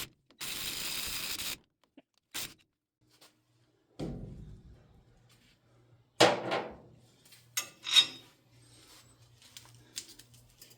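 Hand work on a truck wheel hub while a new wheel stud is fitted and fastened: a steady burst of noise lasting about a second near the start, then a dull thud and several sharp metallic knocks with a ringing tail.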